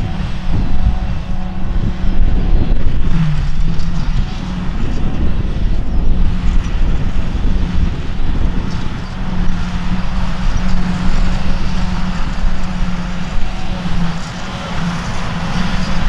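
Claas Jaguar 950 self-propelled forage harvester running under load, chopping grass and blowing it into a silage wagon, together with a Fendt tractor running alongside. A steady loud machine drone with a constant hum that wavers slightly in pitch.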